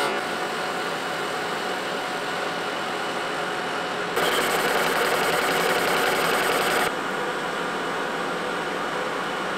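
Metal lathe running with a steady machine drone as the tool faces the end of a spinning metal workpiece. The cutting noise turns abruptly louder and harsher about four seconds in and drops back about three seconds later.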